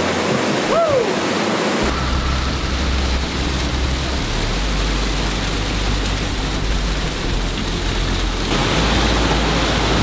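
Waterfall pouring into a rock pool: a steady rush of falling water whose tone shifts abruptly about two seconds in and again near the end. There is a brief rising-then-falling call about a second in.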